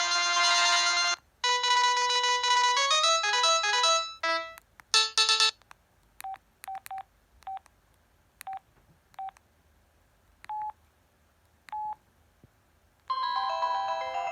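Samsung SCH-N356 mobile phone playing its preloaded polyphonic ringtones: one synth ringtone stops about a second in, a short stepping melody and a few loud notes follow, then several short single-pitch beeps at uneven gaps, and near the end a new chiming ringtone starts.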